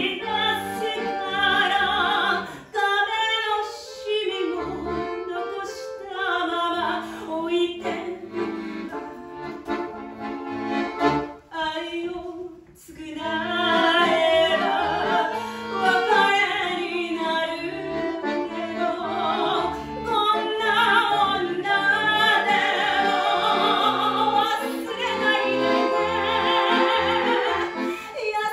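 Operatic soprano singing with vibrato, accompanied by an accordion, with a brief pause in the music about twelve seconds in.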